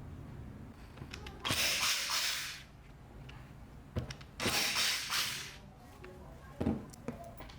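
Two short hissing sprays, each about a second long, with a couple of light knocks between and after them.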